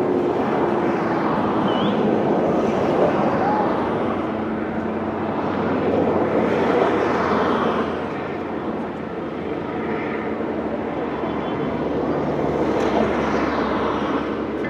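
Busy street noise of vehicles passing, swelling twice as they go by, with the steady drone of an aircraft overhead.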